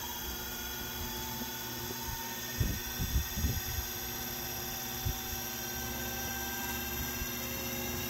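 Hoverboard hub motor, run sensorless from a motor controller with its hall sensors unconnected, spinning a fan blade at high speed: a steady electric whine of several tones over a rush of air. A few brief low knocks sound about three seconds in.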